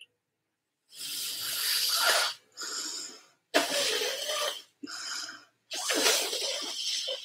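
A woman blowing air out hard through pursed lips in five separate breathy puffs, miming blowing up a big bubble-gum bubble as a face and mouth warm-up.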